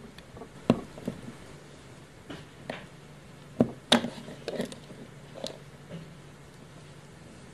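Kitchen knife slicing through a block of dry pink soap: a string of sharp, crunchy cracks, about ten, as the blade cuts and slices break away, the loudest about four seconds in. The cracks thin out after about six seconds.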